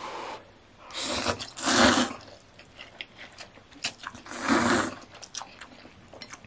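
A person eating a mouthful of instant ramen noodles: two long airy slurps, one about a second in and one at about four and a half seconds, with small wet chewing clicks between and after.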